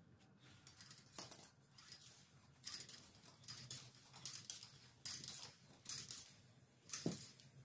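Faint, irregular clicks and rustles of a bicycle wheel and tyre being handled, with one sharper knock about seven seconds in.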